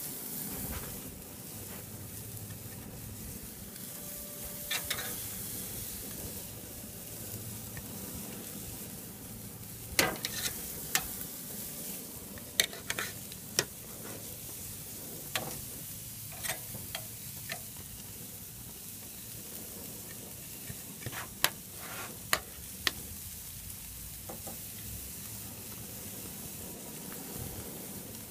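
Steaks sizzling on a hot grill, a steady hiss, with sharp metal clicks of steel tongs against the sheet tray and grill grate scattered through the middle stretch as more steaks are handled.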